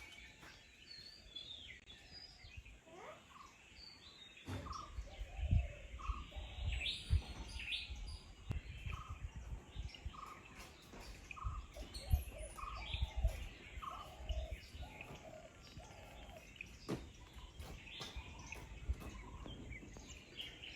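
Birds calling, one of them repeating a short two-note call, a higher note then a lower one, about once a second for several seconds, with other scattered chirps. A low rumble sets in about four seconds in.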